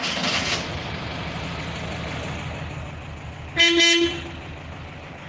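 A motor vehicle's engine running with a steady low pulse that slowly fades, and a horn sounding one short toot about three and a half seconds in.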